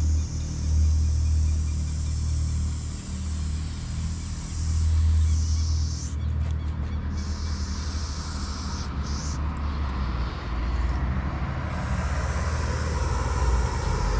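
Aerosol spray-paint can hissing in spells as a black outline is sprayed, with a few short breaks around the middle, over a steady low rumble.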